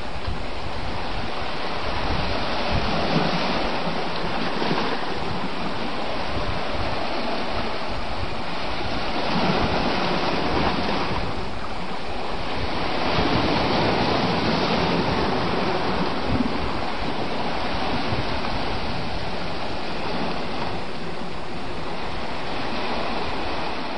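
Ocean surf washing over shoreline rocks: a steady rush that swells louder every few seconds as waves come in, with wind buffeting the microphone underneath.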